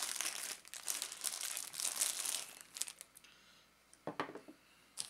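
Clear plastic bag crinkling as a handheld two-way radio is pulled out of it, for about two and a half seconds. The rustling then dies down, with a short knock about four seconds in and a little more crinkling at the end.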